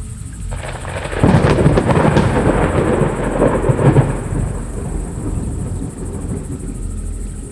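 A thunderclap: noise breaks in about a second in and is loudest for about three seconds, then dies away into a long, low rumble.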